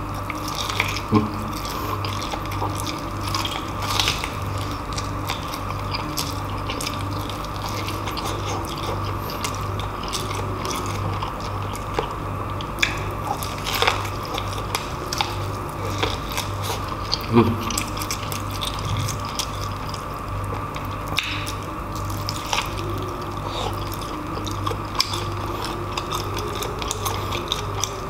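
Close-up wet chewing and lip-smacking of tender braised pork hock, with frequent small mouth clicks, over a steady low hum.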